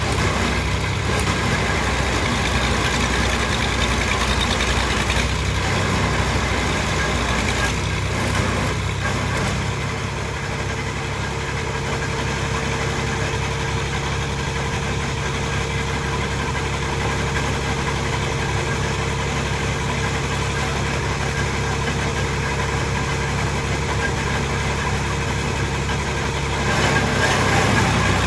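Engine of heavy construction machinery running steadily at a constant speed. A thin steady whine joins in about ten seconds in, and the engine gets a little louder near the end.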